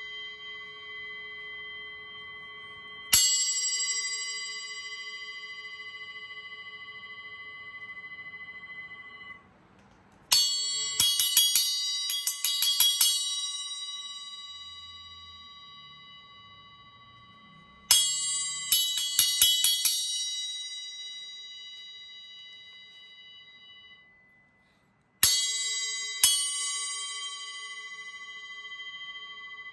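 Arborea Knight Bell 6-inch bell cymbal struck with a drumstick, ringing with a bright, clear bell tone that fades slowly. There is a single strike, then two quick runs of rapid strikes, then two strikes near the end. The ringing is cut off short twice, just before a new strike.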